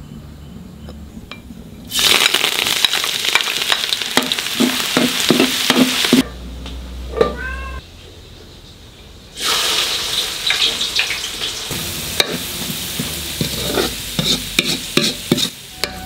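Chopped ginger, garlic and curry leaves frying in hot oil in a pan, a loud sizzle with sharp crackles and stirring. The sizzle starts about two seconds in, drops away for about three seconds in the middle, then comes back.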